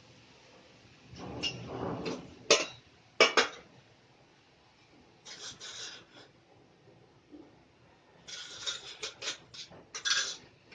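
Metal kitchen pots and utensils being handled, with several sharp clanks about two and a half and three seconds in, and short bursts of scraping and rattling in between.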